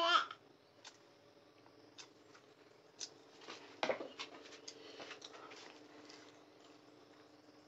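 A child's voice breaks off at the very start. Then come faint, scattered clicks and scrapes of a metal spoon in a ceramic rice bowl as a toddler eats, the sharpest about four seconds in, over a faint steady hum.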